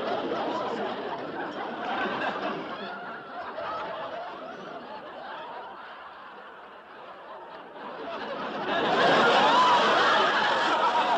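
People laughing and giggling. The laughter dies down around the middle and comes back louder about nine seconds in.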